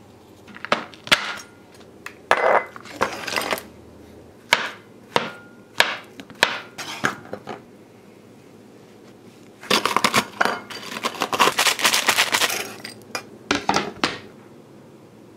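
Chef's knife chopping candy bars and brownie bites on a cutting board: sharp separate knocks, then a dense run of rapid knocks and crunching with clinks about ten seconds in.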